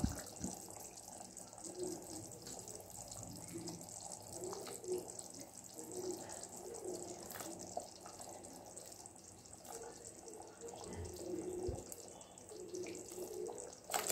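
Thick tamarind fish curry simmering in a pan, bubbles plopping softly and irregularly, as raw fish pieces are slipped into it. A couple of soft low knocks come about three-quarters of the way through.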